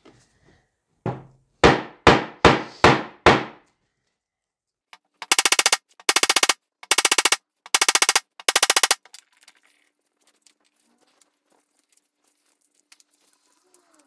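A hammer striking a hole punch through foam-backed Mylar, about six sharp blows in quick succession, each with a short metallic ring. A few seconds later come five short bursts of fast rattling clatter.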